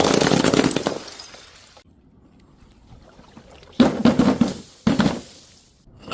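Glass shattering: a crash of breaking glass fades away over the first second or two. After a pause come two more sudden crashes of breaking glass about a second apart, each dying away.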